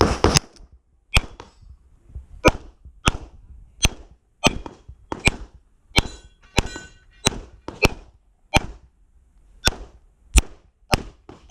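Handgun shots fired in a steady string, about fifteen of them, one every half second to a second, each a sharp crack with a short ringing tail: a shooter working through an IPSC practical-shooting stage.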